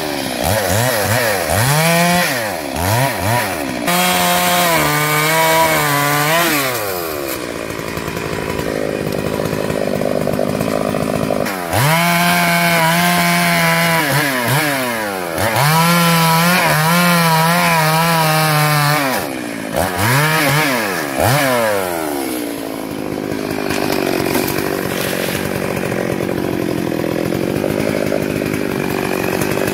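Stihl MS 382 two-stroke chainsaw cutting through felled logs: several full-throttle runs of a few seconds each, with the engine dropping back and blipping the throttle between cuts, then running steadier and lower near the end.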